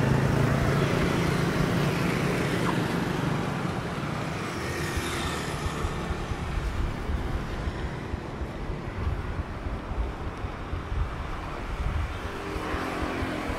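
Street traffic: motorbikes and cars passing. An engine hum is loudest at the start and fades away within a few seconds, and another engine comes in near the end.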